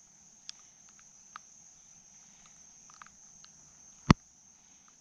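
Faint, steady high-pitched drone of insects, with a few light ticks and one sharp, loud click about four seconds in.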